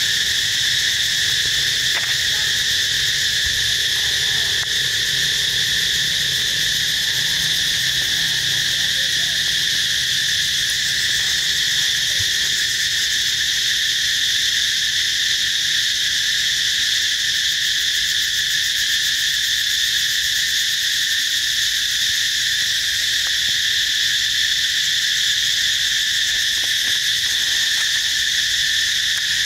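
Dense insect chorus: a continuous, steady high-pitched buzz that neither pauses nor changes in pitch.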